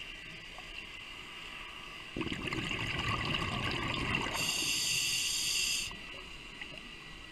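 Underwater, a scuba diver breathes out through the regulator: a burst of bubbling starts about two seconds in, lasts nearly four seconds and cuts off sharply. A steady faint hiss lies underneath.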